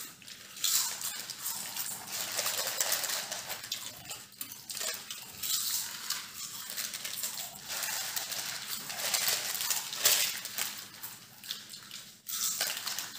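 Foil potato chip packets crinkling and rustling as they are handled, mixed with chips being crunched, in irregular crackly bursts throughout.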